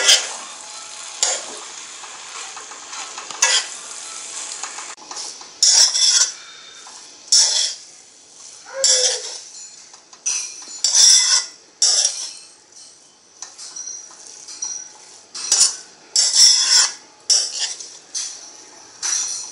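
Slotted metal spatula scraping and tossing rice against the sides of a metal kadai in repeated strokes, roughly one a second, as the rice is mixed into tomato masala. A faint sizzle of the frying mixture lies underneath.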